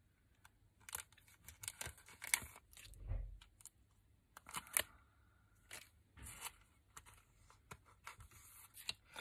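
Clear plastic card sleeves crinkling in short, scattered crackles as small cards are slid out of them by hand.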